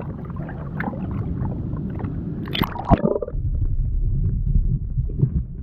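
Seawater sloshing and gurgling in a rock pool, with a splash about three seconds in; after it the sound turns to a dull, muffled rumble as the microphone goes under the water.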